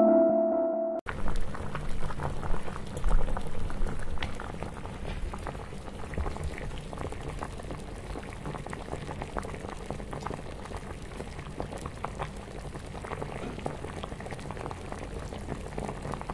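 An ambient music chord cuts off suddenly about a second in, giving way to the dense bubbling and popping of boiling liquid, louder for the first few seconds and then steady.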